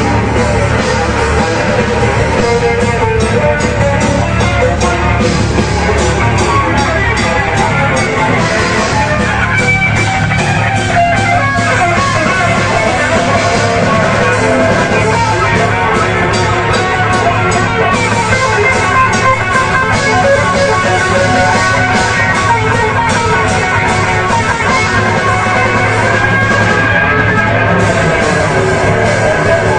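Heavy metal band playing live: electric guitars over a drum kit, loud and continuous.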